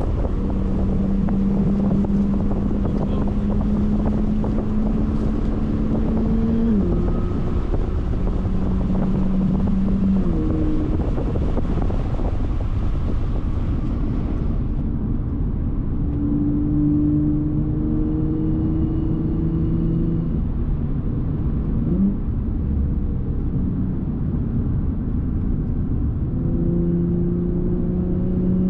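Supercharged Audi V6 engine pulling steadily while driving, its hum climbing slowly and dropping sharply at gear changes several times, with one quick rise in pitch late on. Steady road and wind noise runs underneath.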